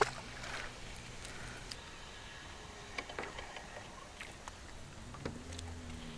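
Quiet handling of a fishing rod and spinning reel on a small boat: one sharp click at the start, then scattered faint ticks, over a faint low hum that grows a little near the end.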